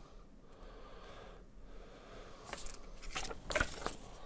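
Paper cards and leaflets being handled and unfolded: faint rustling, with a cluster of sharper paper crackles in the second half.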